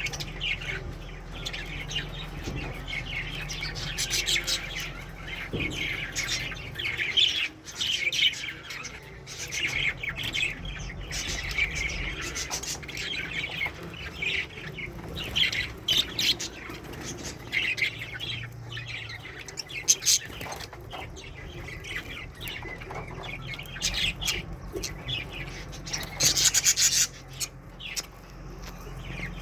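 Pet budgies chattering and chirping continuously in quick, high twittering calls, with a loud harsh burst near the end.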